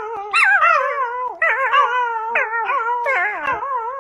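A puppy howling in a string of wavering, warbling calls that break off and start again about once a second.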